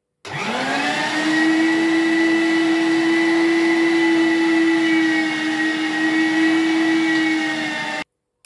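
Electric meat grinder's motor starting up with a rising whine that settles into a steady hum while it grinds ramson, salted pork fat and garlic, then cutting off suddenly near the end.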